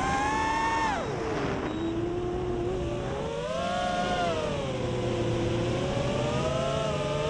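FPV racing quadcopter's electric motors and propellers whining. The pitch drops sharply about a second in, then rises and falls again as the throttle changes, climbing toward the end.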